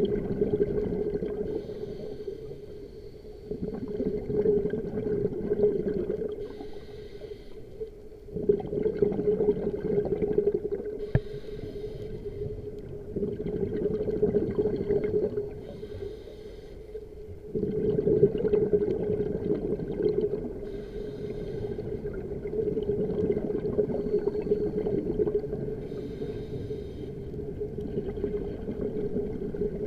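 Scuba diver breathing through a regulator underwater. Exhaled bubbles rumble out in surges every four to five seconds, with a short hiss on each inhale, over a steady hum.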